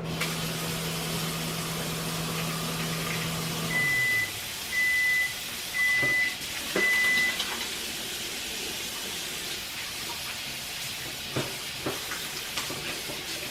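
Microwave oven running with a steady hum that winds down about four seconds in, followed by four beeps about a second apart signalling the end of the cycle. A few light knocks come near the end.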